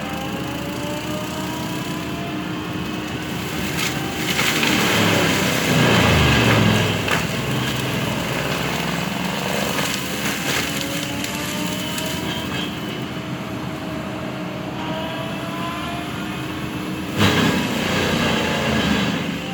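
Bobcat skid-steer with a forestry mulcher head running, its engine pitch rising several times as it works. The mulcher chews into wood in louder spells about four to seven seconds in and again near the end.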